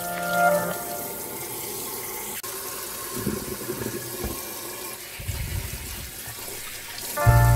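Kitchen sink faucet running, its spray stream splashing into a stainless steel sink and over things being rinsed under it. Background music briefly at the start and again at the very end.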